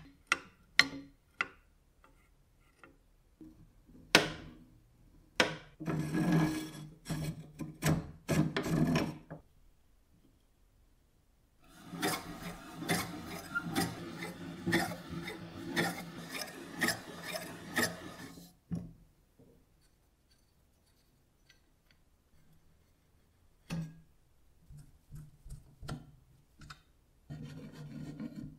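Rusty parts of an antique cast-iron slicer being handled, with a few sharp metal clicks and knocks. Then comes about six seconds of grating metal-on-metal scraping as the blades are turned and rub against the slicer's main body. This is the sign that they are catching on its edge, which is not meant to happen. Near the end there is a single knock and more brief rubbing.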